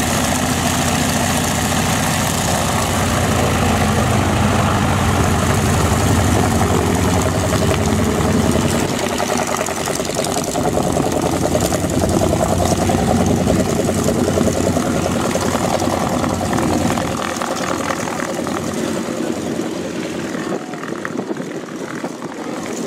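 Junkers Ju 52 trimotor's radial engines running on the ground, a steady rough drone with a fast beat. The low rumble drops away in steps, about a third of the way in and again near the end.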